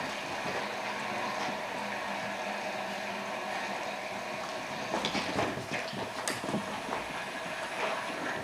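Steady household hum, then from about five seconds in a run of short, irregular taps and scuffles from a small dog dashing about the room.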